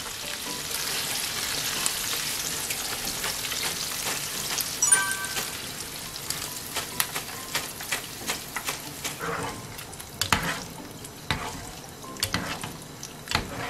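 Hot oil sizzling as battered chicken skins, done with their first fry, are lifted out with a wire mesh strainer; the sizzle fades gradually as the pan empties. A few sharp knocks near the end as the strainer taps against the pan while skimming loose batter bits from the oil.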